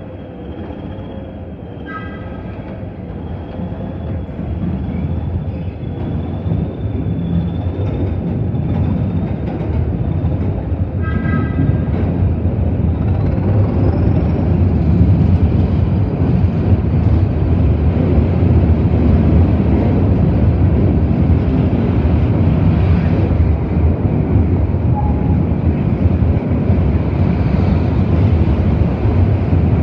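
Hastings diesel-electric unit's English Electric diesel engine getting louder as the train pulls away and gathers speed, then running steadily. A thin, wavering high squeal from the wheels on the curved track comes through during the first half, and two short high tones sound at about 2 s and 11 s.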